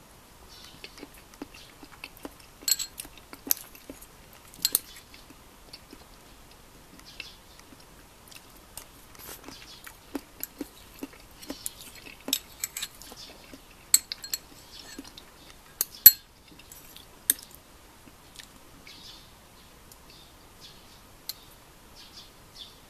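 Eating sounds: a metal spoon clicking and scraping against a ceramic bowl of beef stew, with chewing. Irregular sharp clicks throughout, the loudest about two-thirds of the way through.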